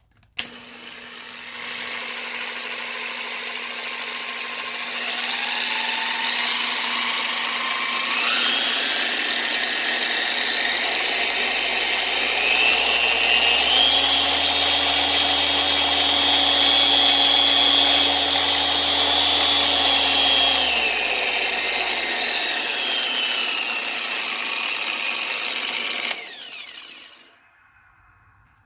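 Harbor Freight dual-action polisher, its gear head freshly repacked with grease, running free as it is stepped up through its speed settings, its whine rising in steps. It is then stepped back down and switched off near the end, winding down.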